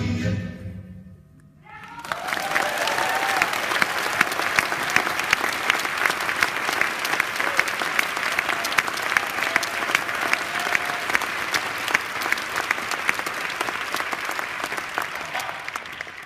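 A stretch of music ends within the first second; after a short pause an audience claps steadily for about fourteen seconds, with a few voices calling out, and the clapping fades near the end.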